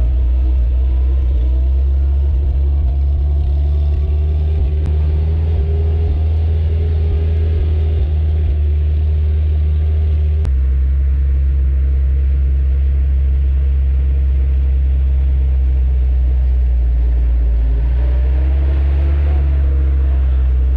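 Willys CJ-3B's four-cylinder F-head engine running as the Jeep drives away up a sand hill. Its drone fades in the middle as the Jeep gets farther off, then grows louder near the end as it comes back, all over a steady low rumble.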